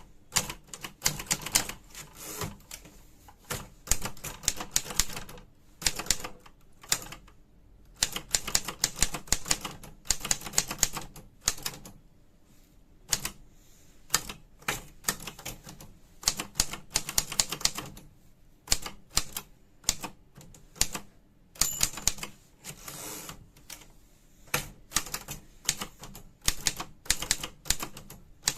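Smith-Corona Corrector 12 typewriter being typed on: quick runs of sharp key strikes with short pauses between them.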